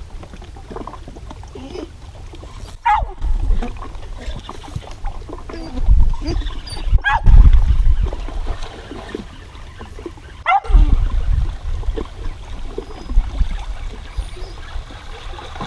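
A dog whining, with three sharp squeals about four seconds apart and softer whimpers between them, over low gusty rumbling.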